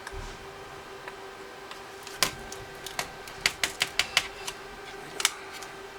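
A run of sharp, light clicks and taps from handling the opened TI-83 Plus calculator's plastic and metal parts: a single click, a quick cluster of about six, then one more near the end.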